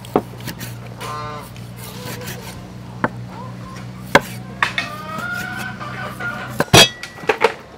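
A steel cleaver chopping roast pork on a wooden cutting board: separate sharp knocks, a few spaced out at first, then quicker and louder near the end.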